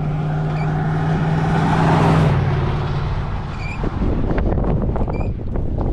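A vehicle's engine and road noise while driving: a steady hum that swells to a peak about two seconds in, then gives way to rough, uneven rumbling. A short high chirp repeats a few times.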